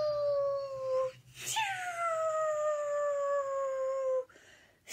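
A woman's voice making long, high, slowly falling 'whoosh'-like vocal glides as a flying sound effect for a hand puppet. The first glide fades about a second in, a second long one follows and stops near the end, and a third begins just at the close.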